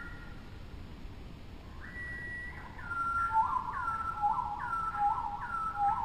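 A series of clear whistled calls. From about two seconds in, a held note steps down in pitch, then short falling phrases with a lower answering note repeat about once a second, growing louder toward the end.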